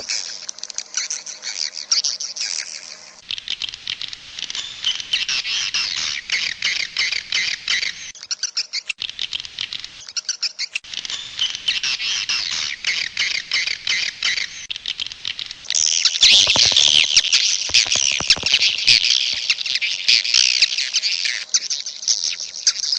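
A large flock of swiftlets twittering, a dense unbroken chatter of high chirps. It swells louder about two-thirds of the way in.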